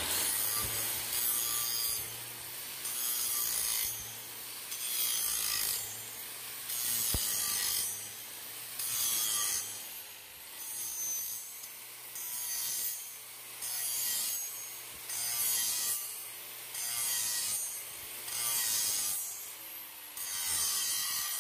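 Angle grinder with a 1/4-inch-thick grinding disc grinding down the inside bevel of a steel pipe flange, taking the landing off to transition it to a smaller reducer. The grinding swells and fades in repeated pulled passes about every two seconds over the steady run of the grinder's motor.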